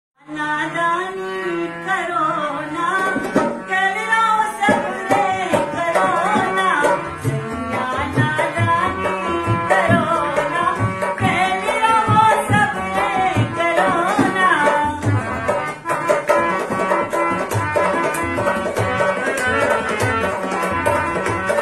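A Hindi song with singing over harmonium chords, held tones sounding from the start. A dholak barrel drum joins about four and a half seconds in and keeps a steady beat.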